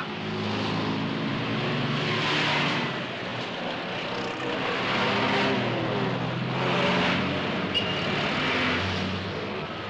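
Busy city traffic: small cars and a three-wheeled motor van drive past, engines running. The noise swells several times as groups of vehicles go by.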